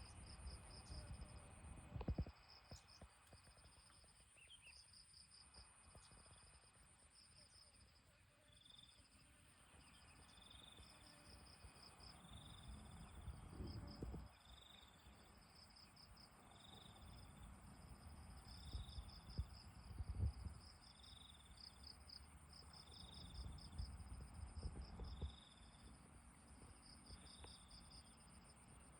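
Faint chorus of insects: a steady high trill, pulsed trains of chirps, and a short chirp repeating about every second and a half. Low rumbling swells under it a few times, loudest about two and twenty seconds in.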